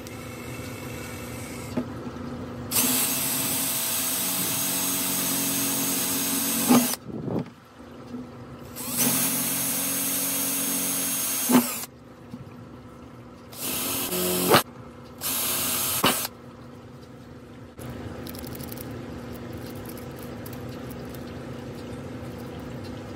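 Power drill with a twist bit boring holes through the bottom of a plastic bucket, running in four steady bursts with a motor whine: two longer ones of about four and three seconds, then two short ones of about a second each.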